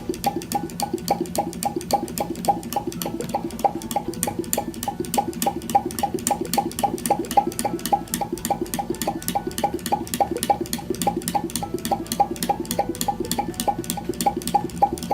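Bengs "Nick" flame-licker model engine running steadily, clicking about five times a second over a steady low hum.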